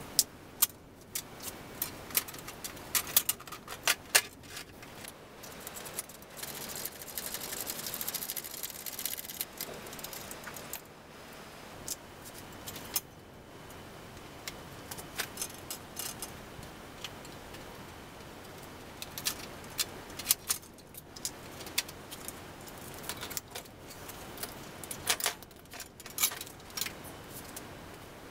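Metal parts of an electric-assist bicycle's rear end (chain, axle hardware, stand fittings) clinking and jangling as the rear wheel is worked free. Scattered sharp metallic clicks, with a denser stretch of rattling about six to ten seconds in.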